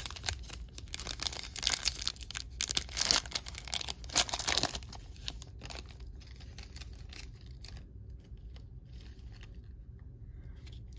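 A trading card pack's wrapper being torn open, crinkling and tearing for the first five seconds or so, followed by quieter handling of the cards.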